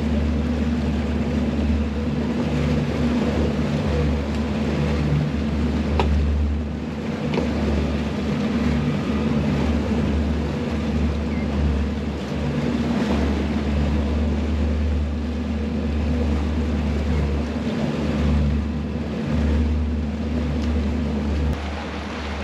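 Twin Mercury Verado 250 hp V8 outboard engines running steadily at slow trolling speed, a low drone that swells and dips, with water rushing along the hull.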